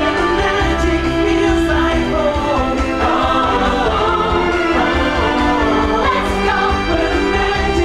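Stage-show song with a group of voices singing over a full musical backing, steady and continuous.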